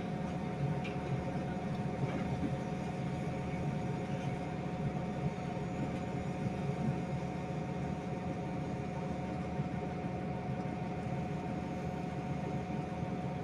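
Diesel engine of a heavy earth-moving machine running steadily, with a steady whine over the engine's hum.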